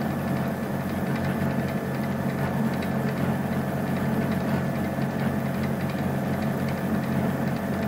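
Milling machine running, its end mill cutting a slot in a metal toe-clamp bar: a steady machine hum with several steady tones over it.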